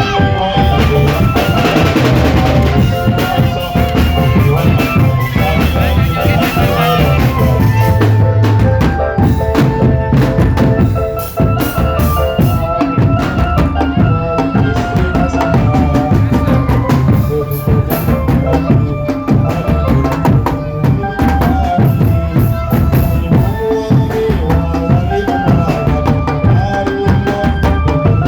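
Indonesian drum band playing: snare and bass drums keep a busy beat under a melody of held notes.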